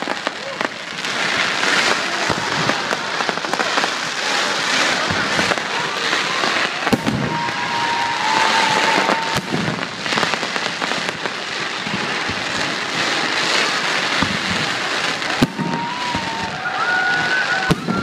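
Aerial fireworks bursting overhead: continuous crackling from the shells with scattered sharp bangs, and a held high tone twice, once in the middle and once near the end.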